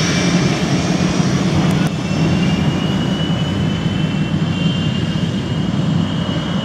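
CF-18 Hornet's twin General Electric F404 turbofan engines running at taxi power as the jet rolls away: steady, loud jet noise with a thin high whine that rises slightly after about two seconds.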